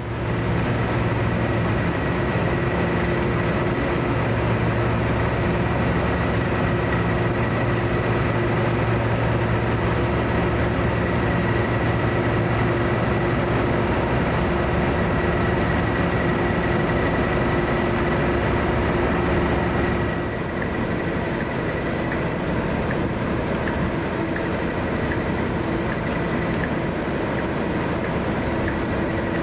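Diesel locomotive engine running steadily, a low hum with a high whine over it. About twenty seconds in, the low engine note drops a little while the whine carries on.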